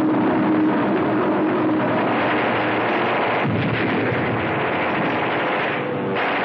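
Continuous din of battle, gunfire and explosions, with a held low tone fading out in the first two seconds.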